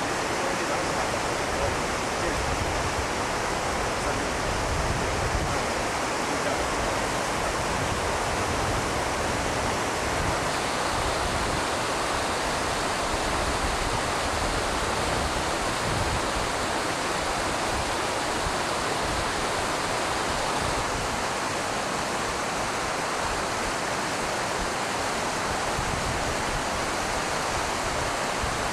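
Steady, even rushing noise with no distinct events. The low end flickers unevenly throughout.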